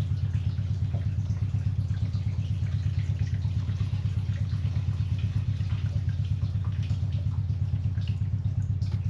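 An engine or motor runs steadily nearby as a low hum, pulsing quickly and evenly, with faint scattered ticks over it.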